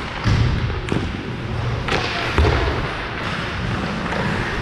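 Ice hockey play: skates scraping across the ice over a steady rink hiss, with a few sharp clacks of sticks and puck, about 1 s, 2 s and 2.5 s in.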